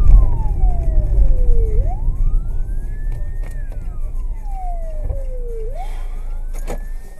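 Emergency-vehicle siren in a slow wail, its pitch rising and falling about once every four seconds. It is heard from inside a car over a low road-and-engine rumble that fades as the car slows almost to a stop.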